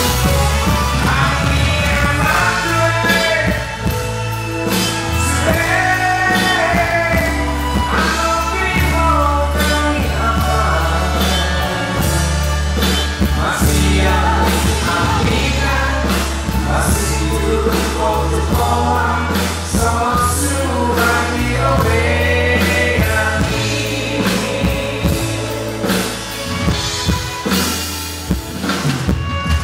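A man singing a song into a handheld microphone, with two women singing along with him, over musical accompaniment with a steady bass line.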